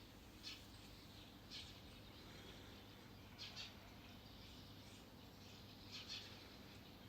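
Small birds chirping faintly, short high calls a second or two apart, some in quick pairs, over a steady low rush of wind and river.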